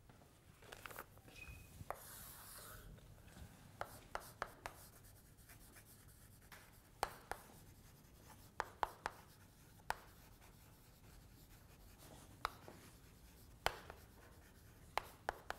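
Chalk writing on a blackboard: irregular sharp taps and short scratchy strokes as the chalk is pressed and dragged across the board.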